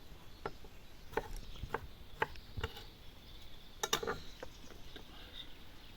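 Knife cutting food on a board: scattered, irregular knocks, with a quick cluster of three about four seconds in.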